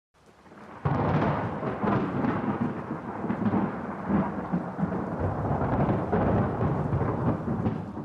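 A long roll of thunder: a low rumble swells in, breaks sharply about a second in, rumbles on for several seconds and fades away near the end.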